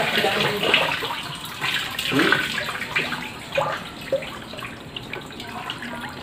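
Water splashing and sloshing as a crowd of live catfish squirm in a plastic basin, in irregular bursts that are busiest in the first second or so and then thin out.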